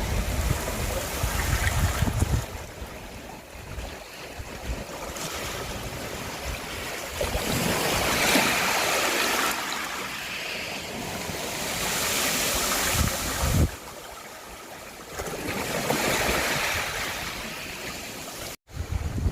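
Sea waves breaking and washing up a beach, the surf swelling and falling back every few seconds, with wind buffeting the microphone in places.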